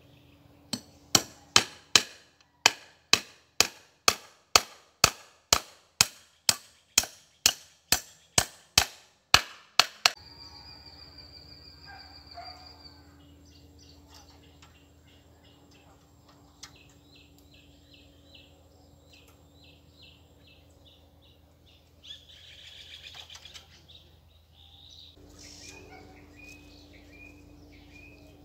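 Steady hammer blows on a wooden post, about two a second for some ten seconds, then stopping. Afterwards birds chirping and trilling.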